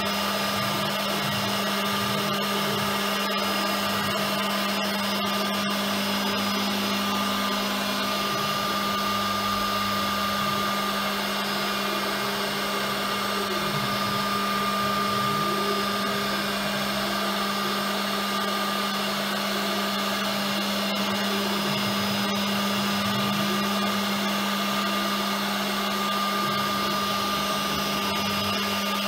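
REU1325A CNC router running with a steady high-pitched motor whine over a constant hiss while its gantry travels along the vacuum table.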